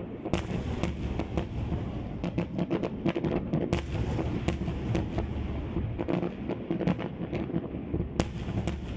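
Aerial fireworks display: a rapid, irregular string of bangs and crackles, several a second, over a continuous low rumble.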